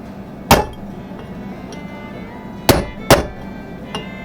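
Three sharp hammer strikes on a metal driver against a wheel bearing race in a 1992 Nissan pickup's front hub, each with a short metallic ring. The race is being knocked out of the hub, worked back and forth through the hub's notches.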